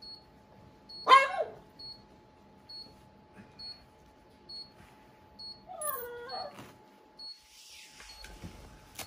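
A dog whining: a short, loud, falling whine about a second in and a second whine around six seconds, with faint high beeps repeating evenly behind. A rustle near the end.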